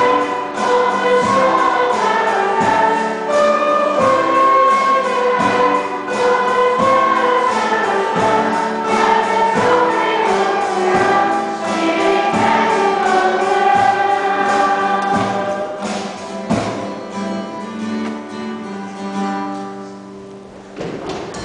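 Children's choir singing a song, accompanied by a small band with drum kit and keyboard; the music grows quieter over the last few seconds.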